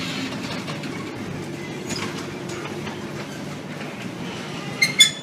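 Steady low rumbling noise, with a quick pair of sharp metallic clinks near the end.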